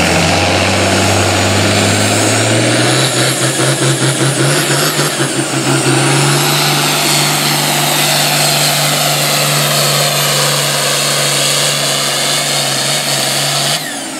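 Turbocharged International Harvester diesel tractor pulling a weight-transfer sled at full throttle. The engine note climbs over the first few seconds, wavers rapidly for a few seconds, then holds steady under load with a high whistle above it. It cuts back sharply near the end as the pull stops.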